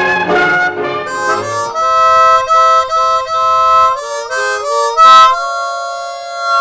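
Background music: a harmonica playing a slow tune of held notes in chords.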